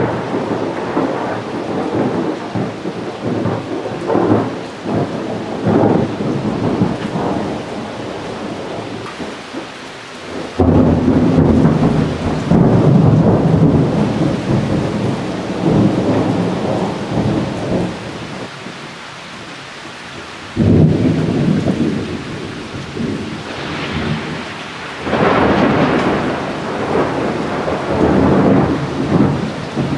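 Thunder rumbling almost without pause. Two sudden loud crashes, about ten and twenty seconds in, each roll on into a long low rumble.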